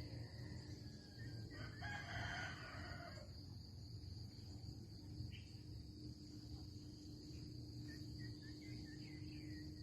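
A rooster crowing once, about a second and a half in, over the steady high chirring of insects, with a few faint bird chirps near the end.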